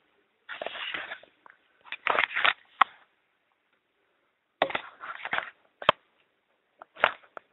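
Plastic LEGO parts of a small gumball-machine mechanism clicking, rattling and scraping as they are handled and worked by hand. The sounds come in several short, irregular bursts with quiet gaps between them.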